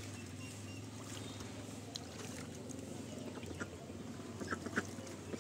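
Mallard drake bathing in a small paddling pool: water splashing and sloshing, with a few short, sharp splashes near the end.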